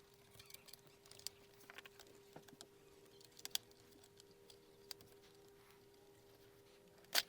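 Faint scattered plastic clicks and taps as a card is worked under the edge of a laptop's thin plastic bottom cover to pry it loose, with a sharper cluster of clicks near the end. A faint steady hum underneath.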